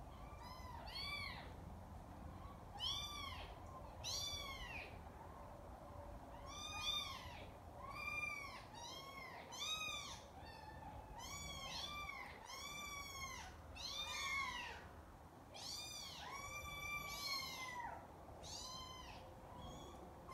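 Three-and-a-half-week-old kittens mewing again and again: short, high calls that rise and fall in pitch, about one a second, sometimes two at once.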